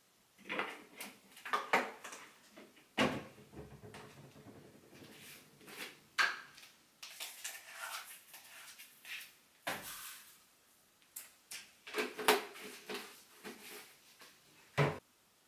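Plastic clicks and knocks from detergent bottles and a front-loading washing machine's detergent drawer being handled while laundry detergent is added, a string of separate taps with a softer, longer stretch of handling a few seconds in.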